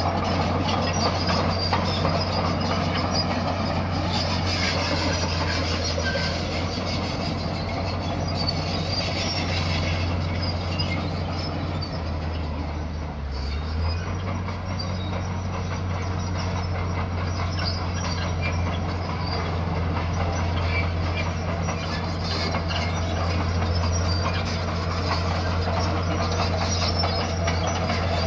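Komatsu crawler bulldozer's diesel engine running under load with a steady low drone, while its steel tracks clank and squeal as the blade pushes a pile of dirt. The engine note shifts briefly about halfway through.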